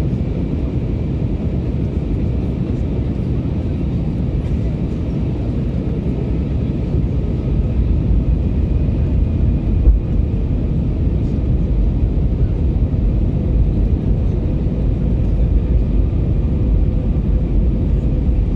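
Airbus A321neo cabin noise on approach, heard from a seat over the wing: a steady low rumble of engines and airflow with a faint steady hum. It grows a little louder about seven seconds in, with a single click near ten seconds.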